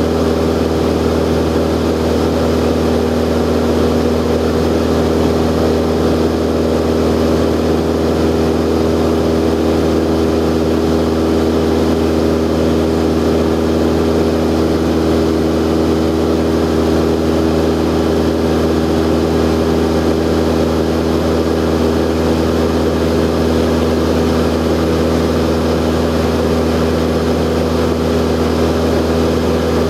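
Cessna 172's piston engine and propeller droning steadily in flight, heard from inside the cabin. The pitch and level hold even, with no change in power.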